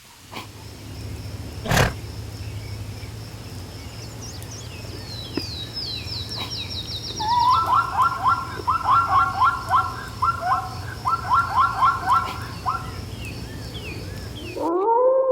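Animal calls over a steady background rush: first a quick run of high falling notes, then rapid groups of repeated chattering notes, with one sharp click early on.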